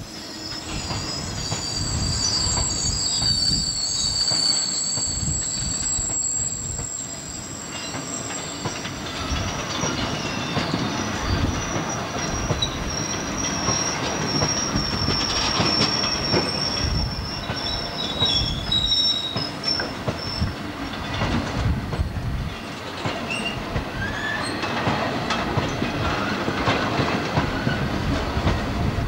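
Loaded coal hopper wagons of a freight train rolling past, their wheels squealing in thin high tones and clattering over the rail joints.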